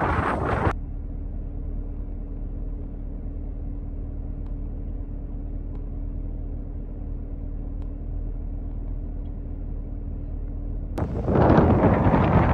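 Wind buffeting the microphone for a moment, then the steady drone of a car driving, heard from inside the cabin. About a second and a half before the end the drone cuts off and loud wind noise on the microphone returns.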